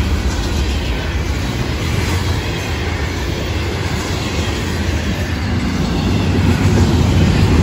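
Freight cars of a Florida East Coast Railway train rolling past close by: a steady, loud rumble and rattle of steel wheels on the rails as refrigerated boxcars, a tank car and double-stacked container well cars go by.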